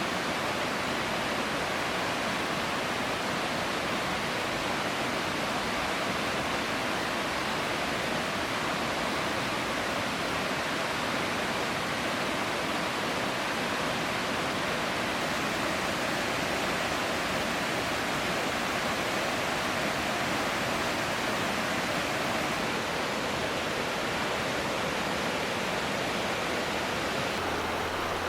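River water flowing steadily, an even rushing noise that does not let up.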